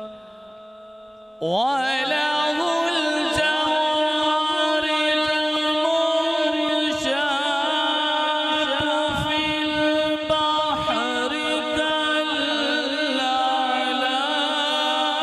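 A man reciting the Quran in the melodic tajweed style through a microphone, holding long notes with wavering ornaments. The voice comes in about a second and a half in, after a fading held tone.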